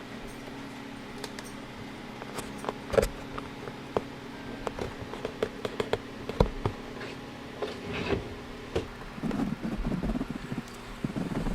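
Steady electric buzz of a hot-staple plastic repair tool heating, with scattered sharp clicks and knocks as the bumper cover and tool are handled. A rougher, louder stretch of noise comes near the end.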